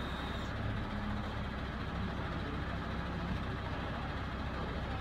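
Diesel engine of a HOWO 8x4 wrecker truck (336 hp) running steadily with a low, even rumble.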